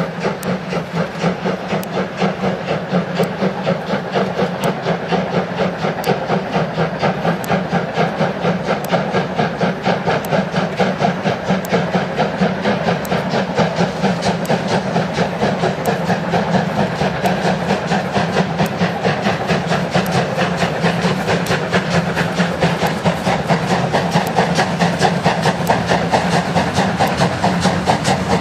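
Steam locomotive hauling a heavy freight train, its exhaust chuffing in a steady, even rhythm of several beats a second, with hissing steam.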